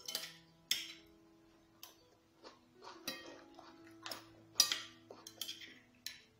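Metal spoon clicking and clinking against a ceramic plate as tomato slices are scooped up, about eight sharp separate clinks with the loudest a little past the middle, over faint background music.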